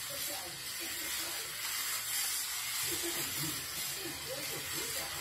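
Steady hiss, with quieter, indistinct voices underneath, most noticeable in the second half.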